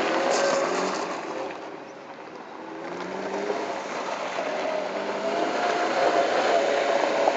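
Lada Niva's four-cylinder engine running under load as the 4x4 drives over loose gravel, its tyres crunching on the stones. The sound fades for a moment about two seconds in, then the engine pitch climbs and holds as it accelerates.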